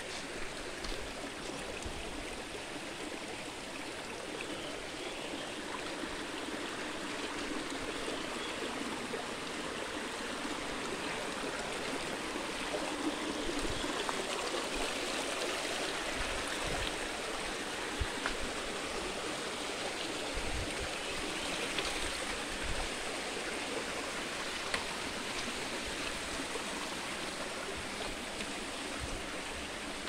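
Shallow rocky stream flowing and splashing over stones, a steady rush of water, with a few soft low thumps here and there.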